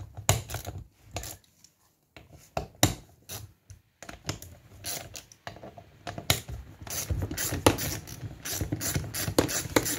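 Irregular metallic clicks, knocks and scrapes from a car's wiper motor and linkage being handled and taken apart by hand, coming thicker in the second half.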